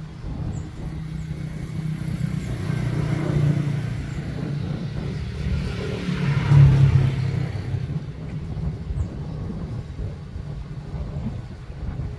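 An engine running with a steady low rumble, growing louder to a peak a little past the middle, then easing off.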